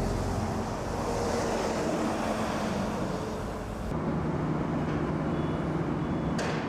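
Steady machinery running with a low hum, the sound changing abruptly about four seconds in.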